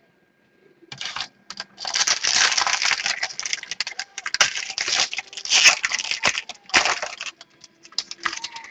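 Crinkly rustling and crackling of trading cards and plastic packaging being handled, in irregular bursts starting about a second in.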